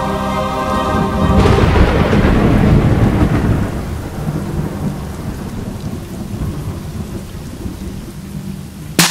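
A held music chord gives way, about a second and a half in, to a loud thunder-like crack and rumble. The rumble rolls on and slowly fades away.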